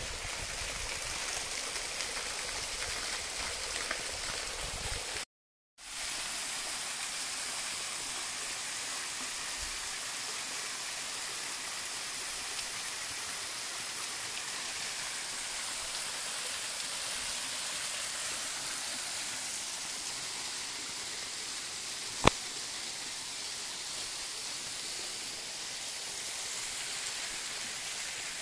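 Steady rushing of white water from a mountain river cascade. The sound cuts out for about half a second a little over five seconds in, then returns. A single sharp click comes about 22 seconds in.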